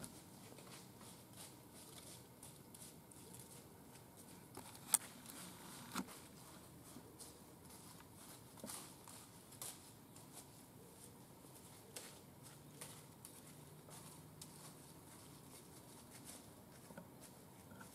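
Quiet woods with faint scattered rustles and small ticks, and two sharper clicks about five and six seconds in.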